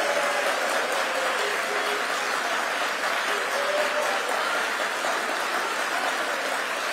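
Large audience applauding steadily, with a few voices calling out faintly over the clapping.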